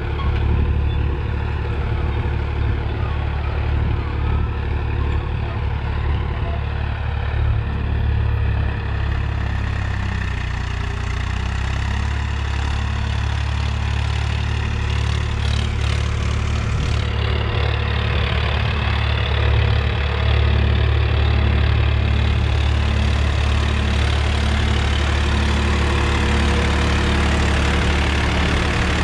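Swaraj 963 FE tractor's three-cylinder diesel engine running steadily under load while pulling a disc harrow through the soil.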